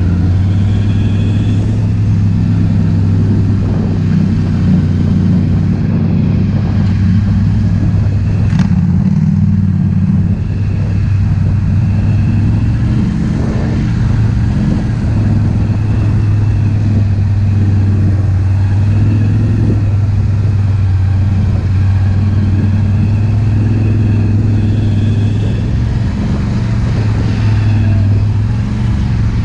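ATV engine running at a nearly constant pitch, with only small shifts in engine note for the whole stretch.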